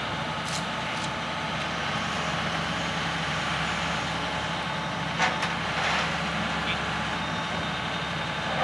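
Heavy diesel engine running steadily at a constant speed, with a few short metallic clanks about five seconds in.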